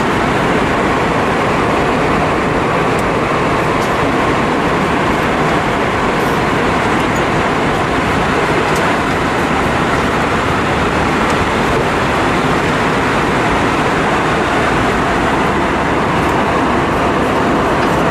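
Steady cabin noise inside an Airbus A320-232 airliner in flight: a dense, even rush of airflow with engine drone underneath.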